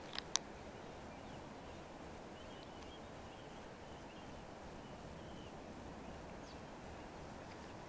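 Quiet outdoor ambience: a steady low hiss with a few faint bird chirps scattered through it. Two sharp clicks come just after the start and are the loudest sounds.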